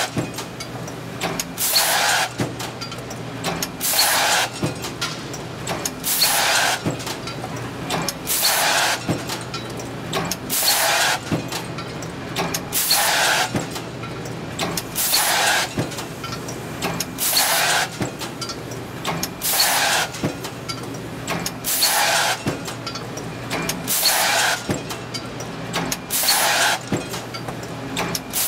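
Cold forging press with a pneumatic transfer running in continuous automatic cycle. A loud hiss of air comes about every two seconds over a steady machine hum, with sharp metallic clicks between.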